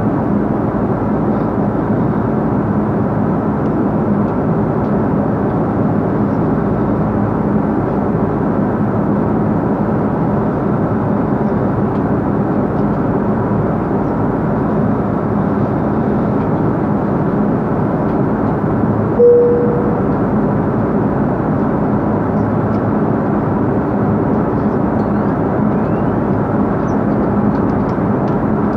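Airliner cabin noise at cruise: a steady, even rush of engine and airflow noise through the fuselage with a faint steady hum. About two-thirds of the way through, one brief tone sounds.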